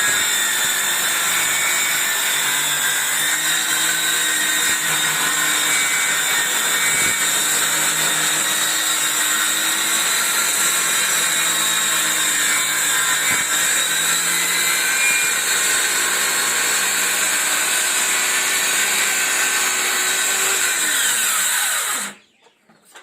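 Electric power saw running continuously while cutting wood straight, its pitch wavering slightly under load. It is switched off about a second before the end and winds down with a falling pitch.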